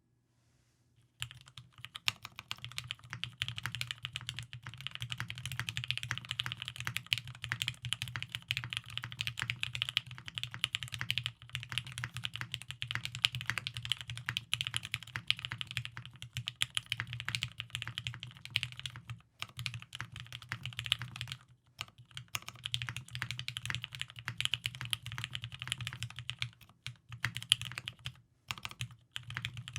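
Steady, fast typing on a TGR Jane V2 mechanical keyboard with an aluminium plate, lubed Tealios V2 linear switches and G81-3000SDU keycaps: a dense stream of key clacks. It starts about a second in, with a few brief pauses later on.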